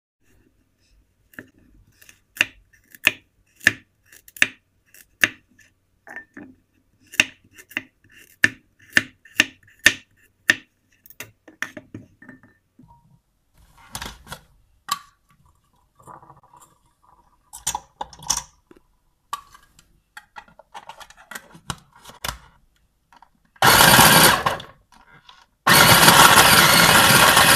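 Plastic clicks and clatter as the bowl, blade and lid of an electric mini food chopper are fitted together, then the chopper's motor runs, chopping carrots: a short burst of about a second, then a longer run.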